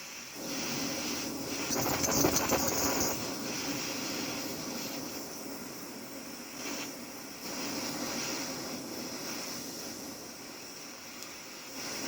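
Gas torch flame hissing and rushing as it heats a silver-soldered joint, growing louder and softer as the flame is worked. The torch has just been filled and burns fiercely.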